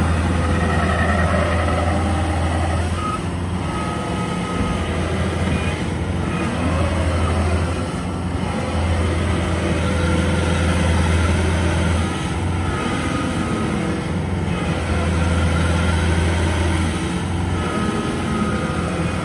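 Modified Kubota combine harvester's diesel engine working hard as the bogged-down machine tries to crawl out of deep mud on its tracks: its low drone surges and eases every few seconds, with a higher whine coming and going. The tracks are sinking in rather than climbing out.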